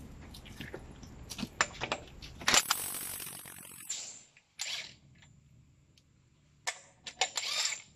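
Hikoki WR36DB 36 V cordless half-inch impact wrench, driving a 41 mm socket through a half-to-three-quarter-inch adapter, hammering for about a second and a half as it breaks loose a truck wheel's lug nut. Clicks before it, and shorter bursts and metal clicks after it as the loose nut is run off and handled.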